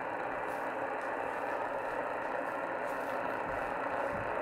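Shortwave receiver tuned to CB channel 38 (27.385 MHz) in lower-sideband mode, its speaker putting out a steady rush of static and band noise.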